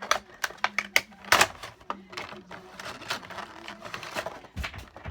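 Irregular clicks and taps of a Funko Pop vinyl figure and its cardboard box and plastic insert being handled and unpacked, the loudest knock about a second and a half in, over a faint steady low hum.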